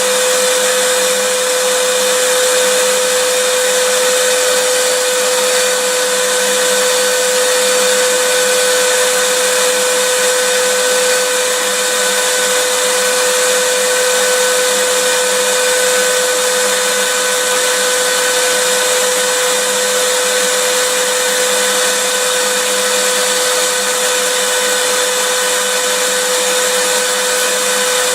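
Vacuum cleaner running steadily: an even, continuous motor whine and airflow hiss, with a steady hum-like tone and no change in speed.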